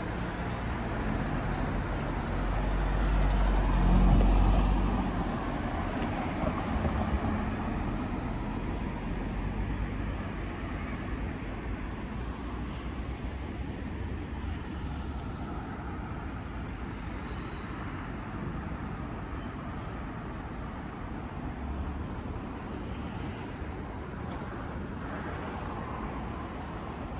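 Road traffic on a city street: a vehicle passing close gives the loudest rumble about four seconds in, then a steady, more distant traffic noise.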